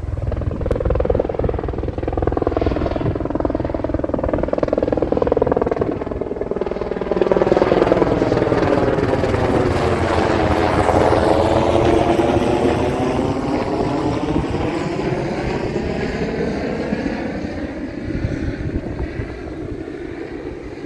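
Helicopter flying over, growing louder to a peak about halfway through and then fading away.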